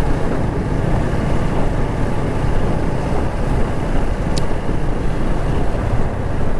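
Motorcycle cruising steadily on a wet road: a constant rush of wind on the microphone over the engine's running and the tyres on wet tarmac.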